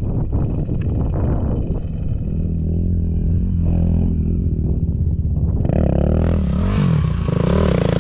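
Dirt bike engine running under changing throttle, its pitch rising and falling as it is revved, getting louder and rougher from about six seconds in.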